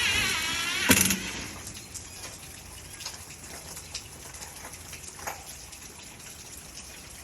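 Steady rain hiss with scattered drips and ticks. It opens with a wavering whine that fades out, and a sharp knock about a second in is the loudest sound.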